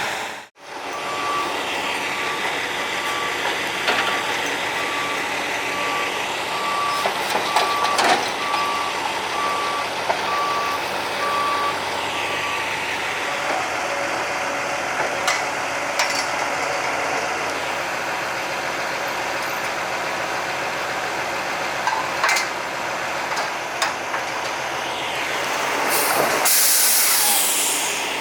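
Heavy diesel machinery running, with a reversing alarm beeping evenly for about ten seconds and a few sharp knocks scattered through. Near the end comes a loud air-brake hiss.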